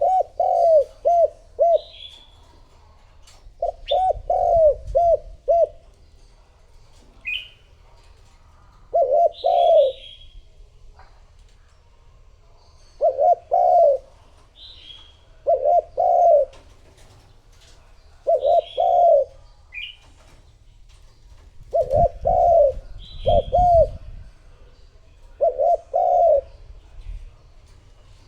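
Spotted dove cooing as a decoy lure call: phrases of two to four low coos, repeated every few seconds. Short, higher chirps of other small birds fall between the phrases.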